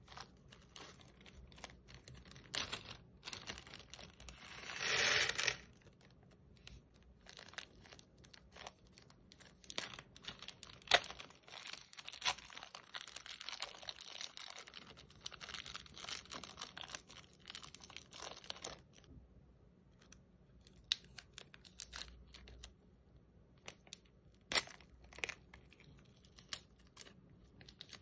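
Slime being worked by hand with small plastic bags: crinkling of plastic and sticky clicks and crackles, with a louder rustle about five seconds in.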